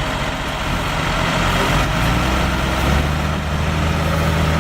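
Diesel engine of a loaded logging truck running hard under load, a steady low drone that grows gradually louder as the truck comes on.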